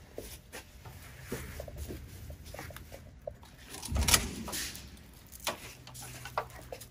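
Handling noise as a leather side skirt panel is fitted and pressed into place beneath a pedicure spa chair: scattered light clicks, knocks and rustles, with one louder thump about four seconds in.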